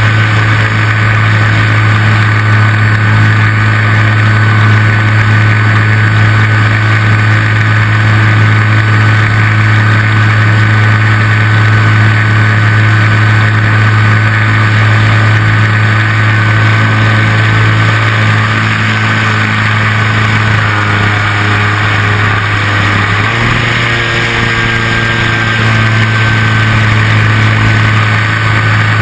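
RC model Piper L-4 Grasshopper's motor and propeller running at a steady speed, with a thin steady whine above the drone and a brief dip in speed about two-thirds of the way through.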